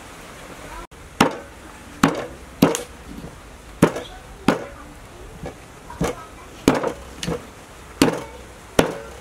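A small axe chopping raw pig's feet into pieces on a round wooden chopping block. About a dozen sharp, separate chops come at an uneven pace, roughly one every half second to second, starting about a second in.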